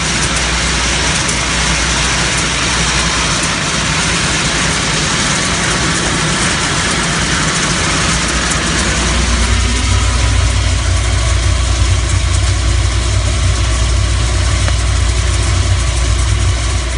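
Berry processing machinery running, a vibratory optical sorter line: a steady mechanical noise with faint scattered clicks. About nine seconds in, the sound shifts to a stronger low hum as the hiss above it thins.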